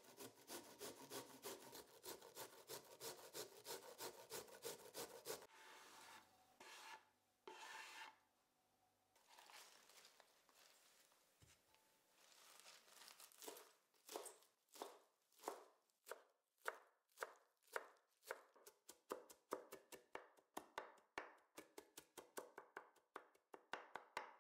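Broccoli grated on a stainless steel hand grater, about five scraping strokes a second, for the first five seconds. Then spinach leaves rustle softly on a wooden board. From about 14 seconds a kitchen knife chops the spinach on the wooden cutting board, the strokes coming faster toward the end.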